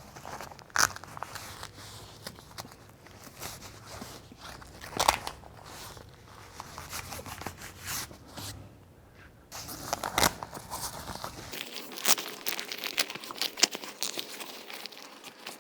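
Rustling, crinkling and scattered small knocks of the sound booth's fabric-covered panels being handled, with a few sharper clicks.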